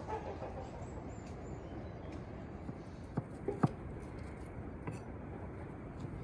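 Steady outdoor background hiss, with sharp knocks of a knife striking a wooden cutting board: three close together a little after three seconds in, then a couple of fainter ones.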